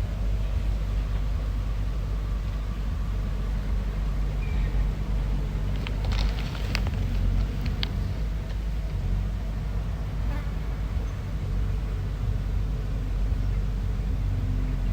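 Bulldozer's diesel engine running steadily with a deep drone, with a short cluster of sharp metallic clanks about six to eight seconds in.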